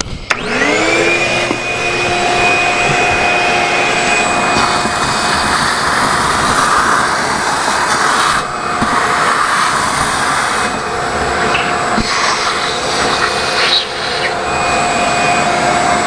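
Shop vac switched on, its motor winding up to speed in about a second, then running steadily as the nozzle sucks up dirt and debris. Its tone shifts now and then as the nozzle moves, and there are a couple of sharp knocks.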